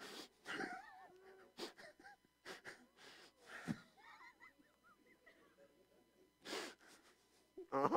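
A man's sharp, wheezy breaths and puffs of air, coming in separate short bursts, with brief wordless voice sounds in the first second and again near the end.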